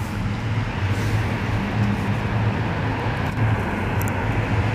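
Double-stack intermodal freight train rolling over a rail bridge, with a steady low drone and continuous rumble.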